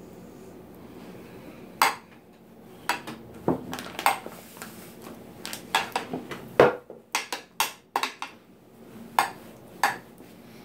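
Metal spoon clinking and scraping against glass baking dishes while spreading thick tomato sauce: a dozen or so sharp, irregular taps, busiest in the middle.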